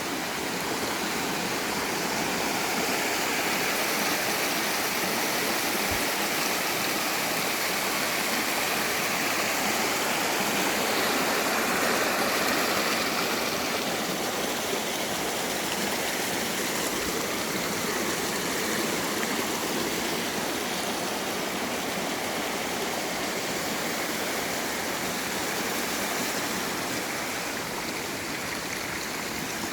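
Mountain valley stream running full after rain: a steady, unbroken rush of water.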